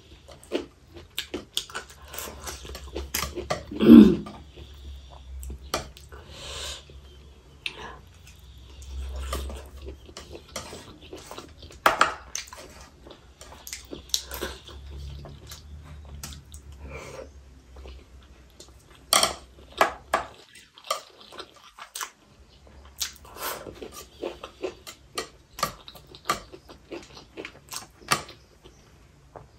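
Close-miked chewing and lip smacking of someone eating octopus, with frequent small clicks of chopsticks against a foil tray and a ceramic bowl. About four seconds in there is one loud, short, low vocal sound that drops in pitch.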